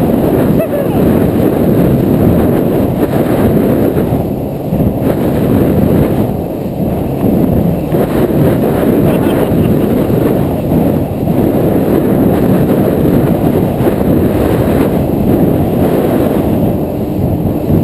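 Steady low rumble of wind buffeting the microphone on a jet ski running at speed, with the craft's engine and water noise mixed in underneath.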